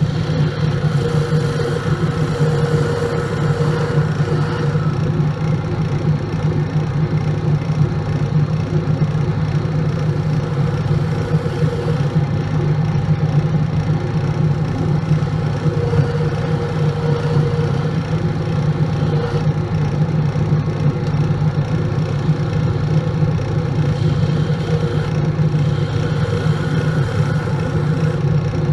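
Grizzly wood lathe running with a steady hum while a hand-held turning tool cuts the spinning wooden blank.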